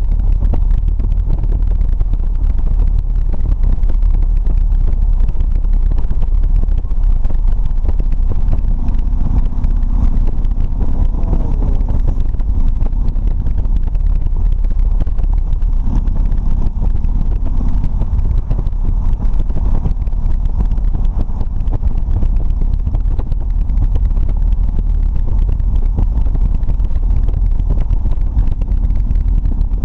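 Harley-Davidson touring motorcycle cruising at a steady road speed: a steady low engine rumble under heavy wind buffeting on the microphone.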